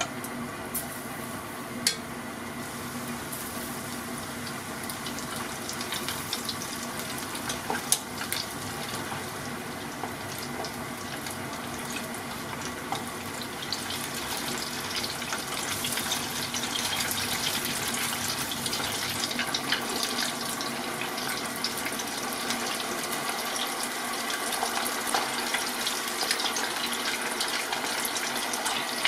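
Pork cartilage pieces coated in flour and potato starch deep-frying in a pot of oil at a slightly low temperature for a slow fry: a steady sizzle of bubbling oil that grows louder about halfway through as the pot fills with pieces, with a few light clicks early on.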